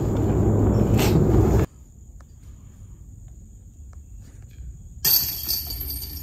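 Wind rumbling loudly on the microphone, cut off abruptly under two seconds in, then quiet woods. About five seconds in, a disc strikes the chains of a disc golf basket and the chains jingle, fading off.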